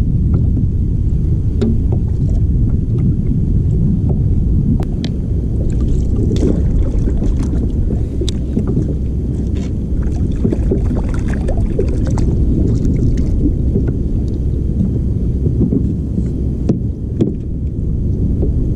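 Wind buffeting the camera microphone on open water: a loud, steady low rumble, with scattered light clicks and knocks.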